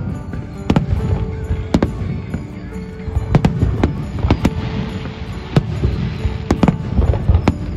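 Aerial fireworks shells bursting in a rapid, irregular string of sharp bangs, with a spell of crackling a little over halfway, over music with long held notes.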